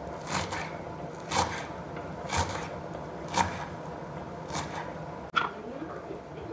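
Kitchen knife chopping through a bunch of fresh coriander on a wooden cutting board, six strokes at about one a second.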